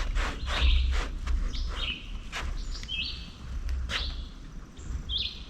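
A bird calling repeatedly in short chirps, over a low rumble and a few sharp clicks.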